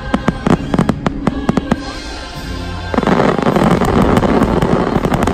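Fireworks display going off in rapid sharp bangs over music. About three seconds in, a dense crackling burst takes over.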